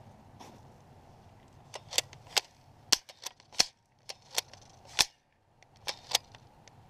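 Pump-action airsoft gun firing plastic BBs, worked with the trigger held down and the gun pumped for each shot. About two seconds in, an uneven string of about a dozen sharp snaps begins.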